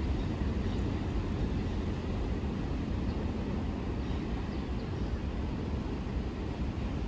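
Staten Island Railway electric train pulling away down the track, its low rumble fading steadily as it recedes.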